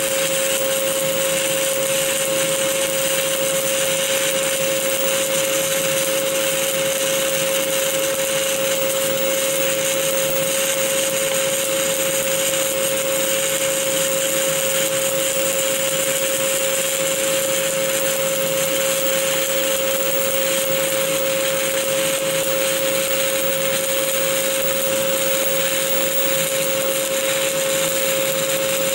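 Stick-welding arc from an Esab OK 48.00 7018 2.5 mm electrode burning without a break through an open-root pass, a steady crackling hiss with a constant hum under it.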